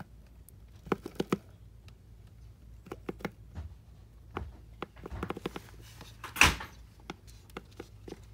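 Scattered light clicks and knocks, a quick cluster about a second in, and one louder knock about six and a half seconds in.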